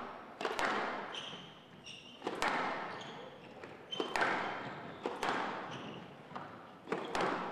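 Squash rally on a glass court: the ball cracking off racquets and walls about once a second, each hit ringing on in the hall, with short squeaks of players' shoes on the wooden floor between hits.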